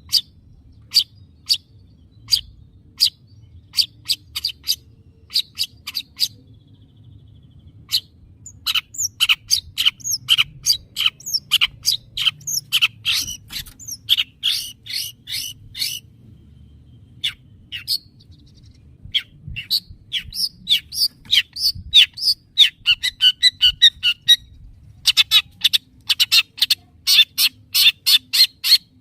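Long-tailed shrike (cendet) calling: sharp single chirps about every half second, then fast, rattling runs of chirps broken by a short pause midway.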